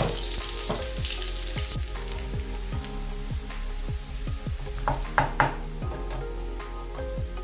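Chopped onions sizzling in hot oil in a non-stick frying pan, stirred and scraped with a wooden spatula, with a few sharper knocks of the spatula about five seconds in.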